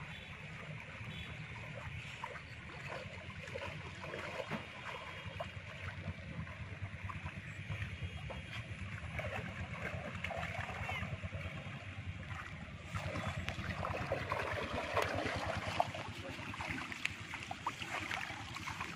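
Water splashing and sloshing as a bamboo-framed push net is worked through shallow floodwater. The splashing grows louder about two-thirds of the way through as the net is lifted and water runs off the mesh.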